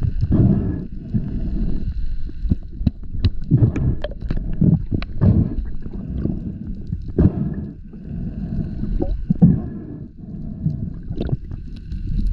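Underwater camera audio as a diver handles a speared wahoo: muffled gurgling water and knocks of handling, with a few sharp clicks. A high steady whine of a boat motor heard through the water comes and goes.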